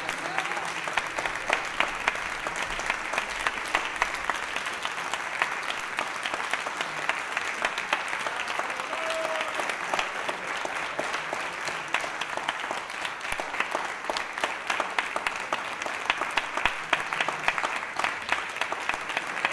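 Audience applause: many hands clapping steadily and densely, with no break.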